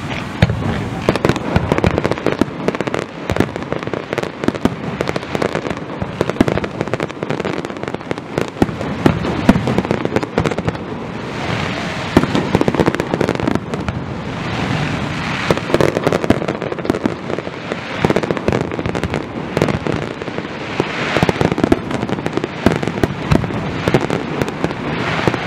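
Fireworks finale: a continuous rapid barrage of bangs and crackling with no pauses, many shells and fountains going off at once.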